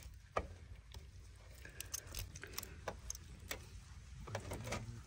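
Faint, scattered clicks and scrapes of a metal spoon prying cooled, sticky caramelized sugar off a ghee-greased metal tray.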